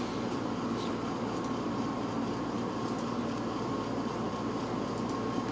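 Steady background hum of a small room, with a few faint clicks of trading cards being flipped through by hand.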